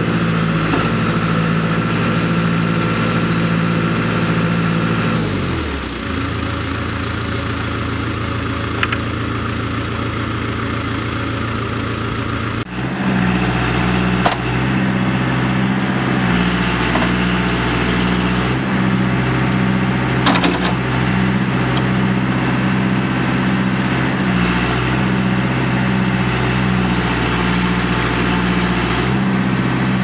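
John Deere four-cylinder diesel engine of a backhoe running. About five seconds in, its speed drops to a lower idle. Roughly halfway through, the sound cuts abruptly to the engine running faster with a regular pulsing beat, with a couple of sharp clicks.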